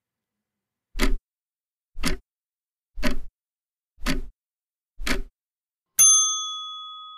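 Countdown timer sound effect: five clock ticks, one a second, then a single bell ding that rings and fades, marking that the time to answer the trivia question is up.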